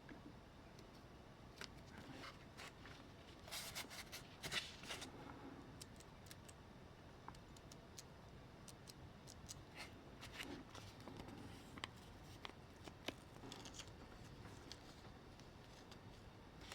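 Faint handling sounds of small parts and tools: scattered light clicks and taps, with a few short scrapes about four seconds in.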